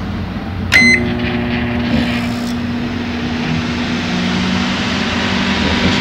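Microwave oven keypad gives one short beep as start is pressed, then the oven starts and runs with a steady hum. It is working again after a fuse-blowing fault, which the repairer puts down to the middle door interlock switch.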